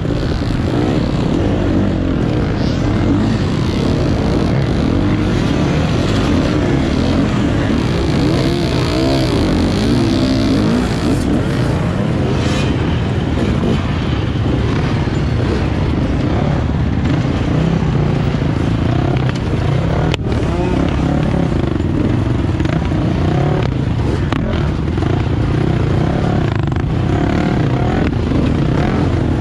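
Dirt bike engine revving up and down over and over as it is ridden hard off-road, heard close on a GoPro, over a constant low rumble.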